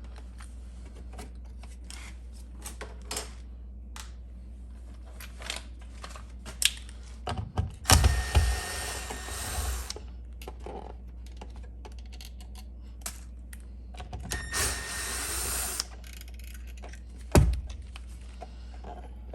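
Hand-tool and handling noises while a GFCI outlet is unscrewed and pulled from its wall box: scattered clicks and small knocks, two longer stretches of rasping about 8 and 15 seconds in, and one sharp knock near the end.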